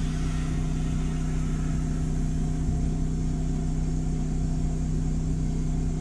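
Air compressor running steadily while air hisses through the hose into a tubed ATV tire, inflating it to seat the bead on the rim.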